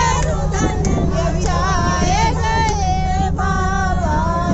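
High women's voices singing a song inside a moving bus, over the bus's steady low engine and road rumble.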